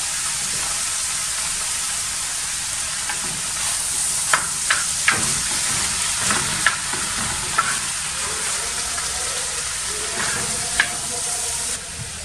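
Chicken, spinach and chard filling sizzling steadily in a frying pan while a wooden spoon stirs it, with scattered sharp clicks of the spoon against the pan.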